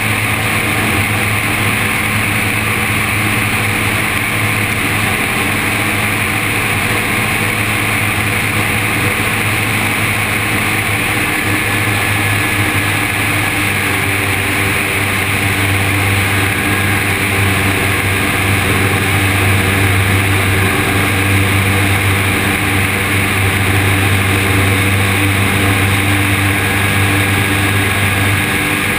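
Zenair CH 701 light aircraft's engine and propeller running steadily in cruise flight, a constant drone under a rush of air, getting a little louder about halfway through.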